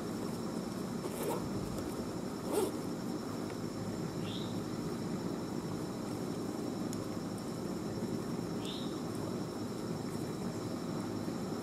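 Steady outdoor background rumble with a high insect drone. Near the start come two clicks of climbing gear being handled, about a second apart, the second louder. Later there are two short rising bird chirps a few seconds apart.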